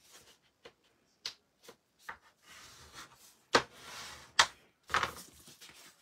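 Paper and cardstock being handled: a bone folder rubbing across the card, several sharp taps and some rustling of paper sheets.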